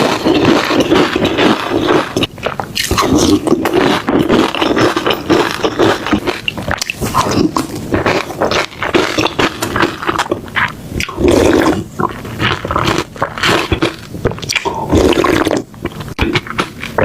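Close-miked eating: continuous wet chewing and crunching of food, with scraping and clicking noises throughout.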